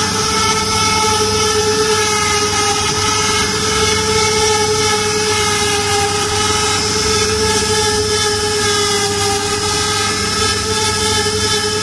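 Router spindles on a multi-head CNC wood router running at high speed while carving relief designs into wooden panels: a loud, steady high-pitched whine that wavers slightly in pitch as the bits cut, over a hiss of cutting noise.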